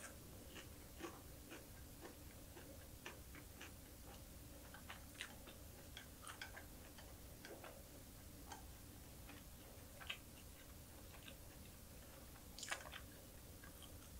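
Soft, irregular clicks and crackles of a person chewing small dried anchovies and green chili peppers with the mouth closed, with a louder cluster of crunches near the end.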